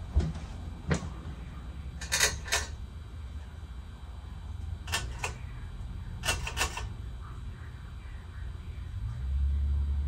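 Hunter Original ceiling fan with a PSC motor, running with a steady low hum. Several sharp clicks break in, some in quick pairs. The low rumble grows louder near the end.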